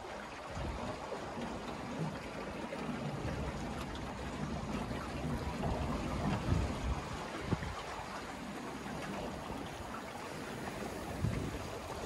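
Water rushing and splashing along the hull of a small sailboat under sail, with a few louder slaps of waves against the hull.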